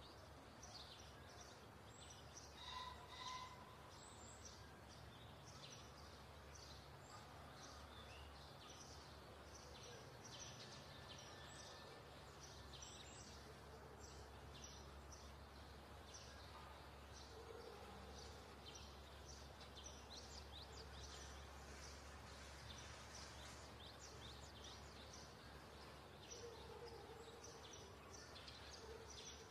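Near silence: faint outdoor background with many short, high chirps from small birds, over a low steady hum.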